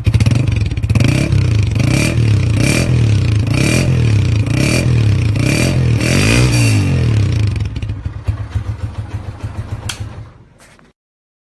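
Honda CG125's single-cylinder four-stroke engine breathing through an aftermarket silencer, blipped up in short revs about once a second. Then the revs fall away and the engine slows and dies to a stop, with a single click near the end.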